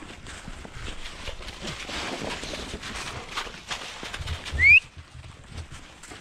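Footsteps crunching through fresh snow, a person and dogs moving on foot. About four and a half seconds in, a single short, loud, high squeal rises in pitch.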